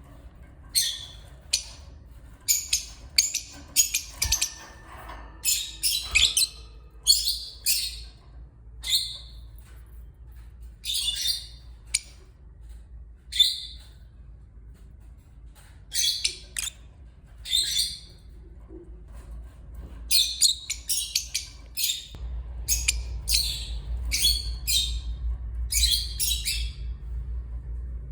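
Lovebirds calling: short, sharp, high-pitched chirps and squawks in irregular clusters, with brief pauses between them.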